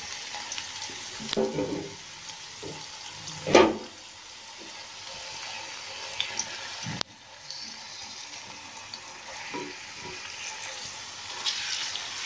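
Sliced onions sizzling as they fry in hot oil in a karahi, a steady hiss with a few knocks in between. A brief louder sound comes about three and a half seconds in.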